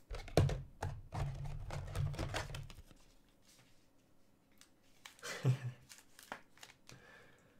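Trading cards and their packaging handled close to the microphone: rustling, crinkling and small clicks, heaviest in the first three seconds. A short murmur about five and a half seconds in.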